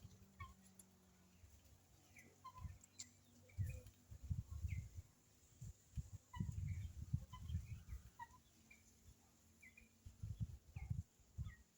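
Helmeted guinea fowl giving short, scattered chirping calls over a faint steady cicada buzz. Bursts of low rumble come and go throughout and are the loudest sound.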